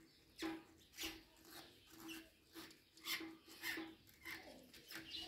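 Faint, irregular rubbing and scraping of metal fittings as a kitchen faucet is turned and screwed onto a wall pipe, in short strokes about twice a second.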